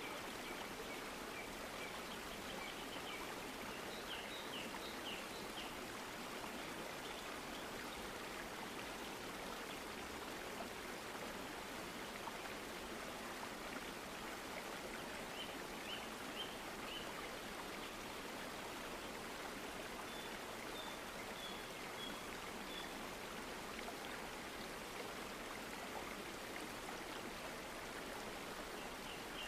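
Steady rushing noise like a flowing stream, with short runs of quick high chirps a few times.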